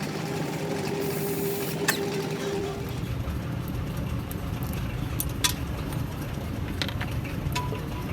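An engine running steadily, with a few sharp metallic clicks over it.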